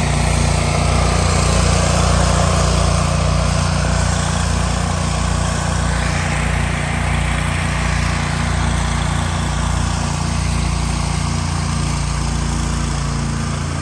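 Small engine of a pressure washer running steadily, under the broad hiss of its water jet spraying a concrete slab.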